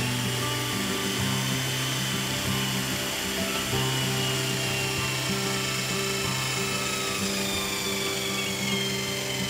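Electric drill running at speed, boring into a rubber tyre: a steady high motor whine that drops in pitch near the end as it winds down. Background music plays underneath.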